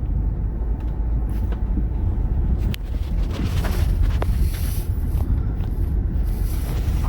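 Car driving slowly: a steady low rumble of engine and tyres, with scattered short clicks and rattles.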